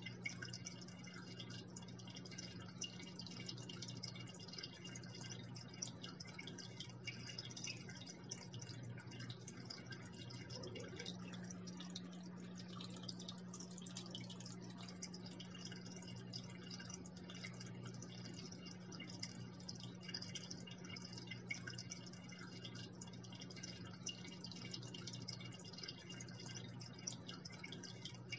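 Aquarium water falling and trickling into the tank, a continuous patter of small splashes, with a steady low hum underneath.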